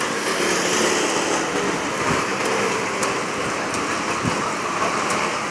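Chicken cutlets frying in a deep fryer: hot oil sizzling steadily with a fine crackle.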